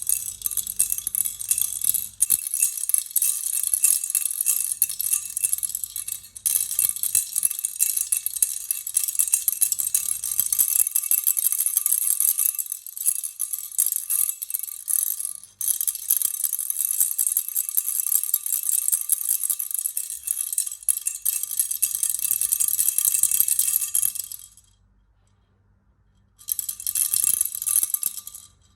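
Baby rattle shaken in a fast, dense, continuous rattle with short breaks. It stops about 24 seconds in, then is shaken again for about two seconds near the end.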